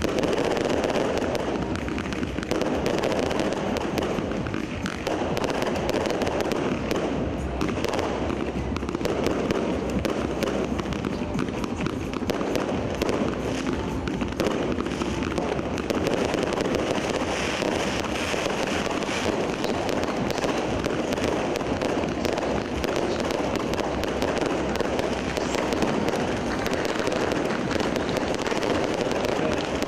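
Aerial fireworks display going off in a dense, continuous barrage of bangs and crackling, with no pause.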